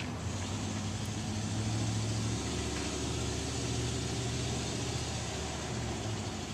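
A motor vehicle going by, its engine and road noise swelling over about two seconds and then holding steady.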